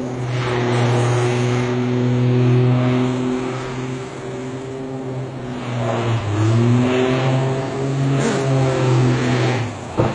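An engine running hard with a steady pitched note over a rushing noise; about six seconds in the pitch dips and climbs back up. A short loud hit comes near the end, just before the sound drops away.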